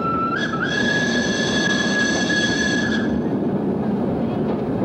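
Steam tram running on street track, its wheels giving a long high squeal that steps up in pitch about half a second in and stops about three seconds in, over a steady rolling rumble.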